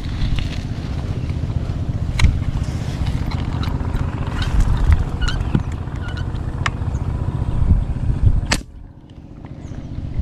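Wind buffeting the microphone as a steady low rumble, with scattered light clicks. A single sharp snap comes near the end, after which the rumble falls away.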